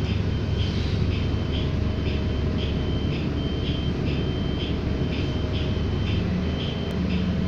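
City bus running, a steady low rumble inside the cabin. Over it, a high electronic beep repeats about once a second.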